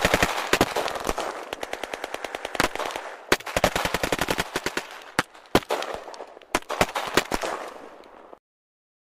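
Automatic gunfire: a rapid, even burst of shots at first, then shorter scattered bursts that grow fainter and stop about eight seconds in.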